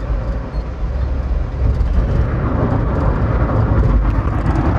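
Steady road and engine rumble of a car driving at highway speed, heard from inside the cabin.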